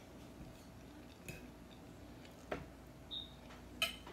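A fork clicking lightly against a dinner plate a few times, the sharpest clicks about two and a half and four seconds in, over a quiet room.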